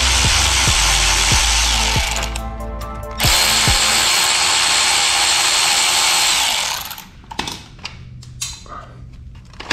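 Cordless power tool spinning a socket on a long extension, running in two long steady bursts to back out frame bolts, the second starting about three seconds in and stopping about seven seconds in. Light handling clicks follow as the bolt comes free.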